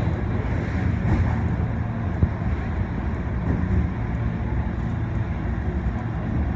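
Osaka Metro Tanimachi Line 22 series subway car running, heard from inside the car: a steady rumble of wheels on rail with a few faint clicks.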